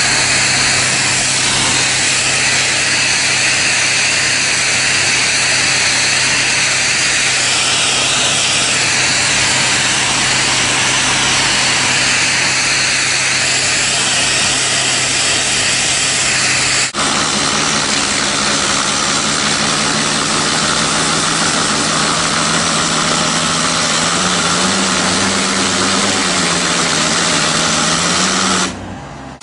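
High-pressure water jet at 500 bar blasting, a loud steady hiss over the constant hum of the jetting pump's engine. The sound changes abruptly about two-thirds of the way through, and the hiss drops out briefly near the end.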